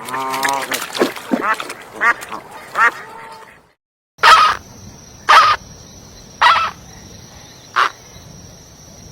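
Ducks quacking: a string of calls, then after a brief break four loud single quacks about a second apart.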